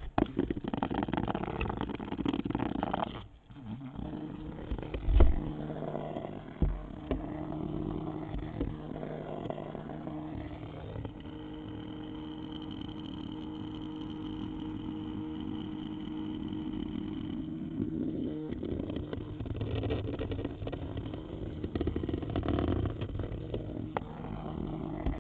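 Trail camera being handled and set down, with rustling and a sharp knock in the first few seconds. Then a steady low buzzing hum with scattered small knocks.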